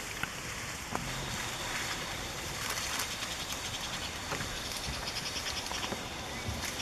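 Steady outdoor background noise with a few faint clicks; from about five seconds in, a fast, high, evenly repeated chirping joins it.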